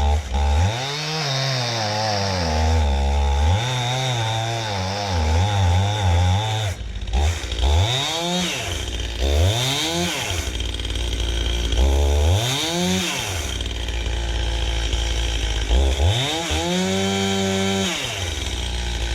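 Stihl Farm Boss two-stroke chainsaw with a new Oregon bar and chain cutting wood, its engine revving up and dropping back about six times. The engine bogs under load, which the owner puts down to it needing a carburettor tune-up.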